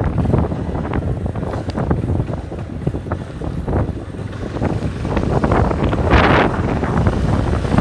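Wind buffeting the microphone over a loud rumbling noise, broken by many short knocks and rattles.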